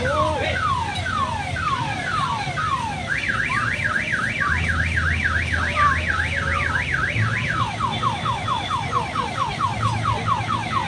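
Electronic vehicle alarm siren cycling through its tones. It starts with falling sweeps a little over two a second, switches about three seconds in to a fast up-and-down warble, about four a second, and then about seven and a half seconds in to quicker falling chirps, about five a second.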